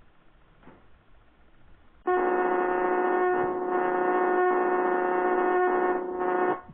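A loud, steady moaning drone held at one pitch, played back from the end of a VHS tape; it starts suddenly about two seconds in and cuts off abruptly about four and a half seconds later.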